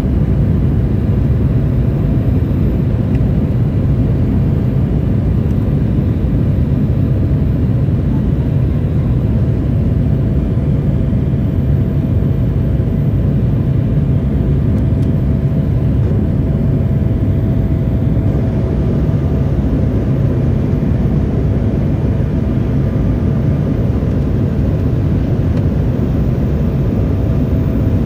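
Cabin noise of an Embraer E175 during takeoff and initial climb. Its GE CF34-8E turbofans at high thrust give a steady, deep rumble with a faint steady tone above it, heard from inside the cabin beside the wing.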